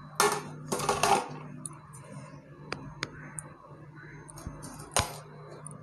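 Handling of a dough-sealed aluminium cooking pot: two brief scraping rustles in the first second, then a few scattered light clicks and taps, the sharpest about five seconds in, over a steady low hum.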